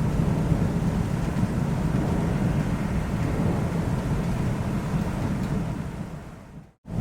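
Thunderstorm recording: a steady rain hiss over a deep, continuous thunder rumble. It fades out near the end to a moment of silence.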